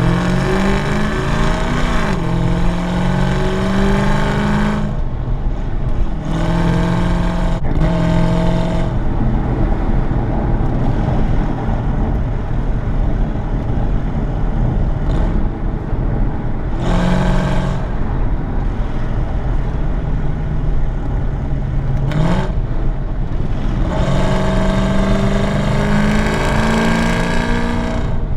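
Cammed 6.2-litre LS3 V8 with a Livernois camshaft and long-tube headers, its exhaust rising in pitch through several hard pulls with easier stretches in between as the car is driven.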